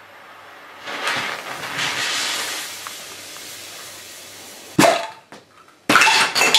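Tabletop party firework's fuse hissing, starting about a second in and slowly dying away, then a sharp bang as the tube fires. A clatter follows near the end as the ejected party trinkets land and scatter across the wooden table.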